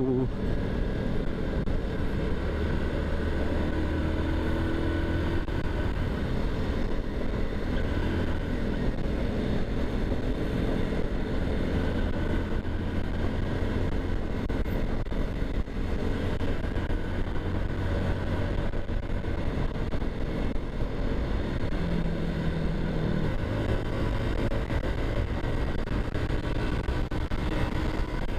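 Honda TMX 125's single-cylinder four-stroke engine running steadily while the motorcycle is ridden on the road, mixed with a constant rush of wind noise on the helmet-mounted camera; the engine note shifts pitch a few times as the speed changes.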